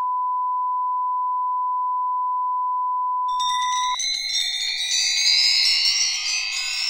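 Steady line-up test tone, the beep that goes with colour bars, cut off sharply about four seconds in. Just before it stops, a shimmering chime sound effect with several rising tones comes in and carries on.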